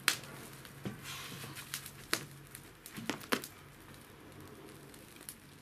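Bonfire crackling, with about five sharp pops in the first three and a half seconds.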